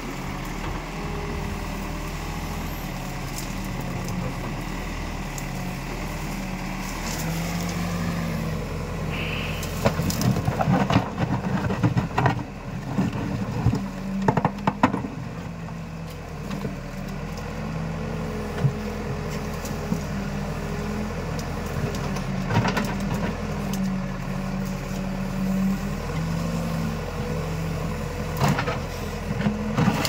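Escorts Digmax backhoe loader's diesel engine running under hydraulic load while the backhoe digs, its pitch and level shifting as the arm works. In the middle stretch, and briefly near the end, there is a run of cracks and knocks as the bucket breaks through brush and branches in the mud.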